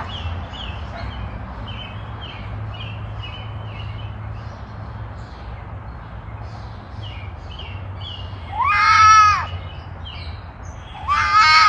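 Animal calls: a run of short, high chirps repeating about two or three times a second, then two loud, drawn-out calls, one about eight and a half seconds in and one near the end.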